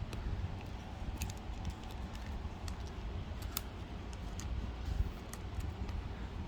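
Trading cards being handled: a few faint, sharp clicks and slides of card stock scattered through, over a steady low hum.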